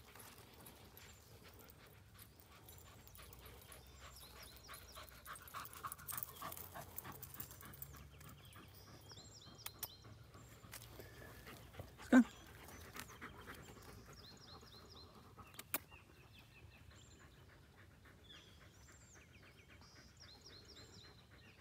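A dog gives a single short bark about twelve seconds in, over a background of small birds chirping in short repeated phrases.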